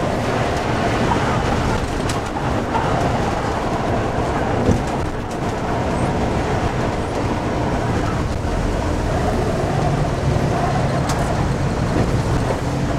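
Volvo coach under way, heard from the driver's cab: a steady engine drone and road rumble, with one short knock about five seconds in.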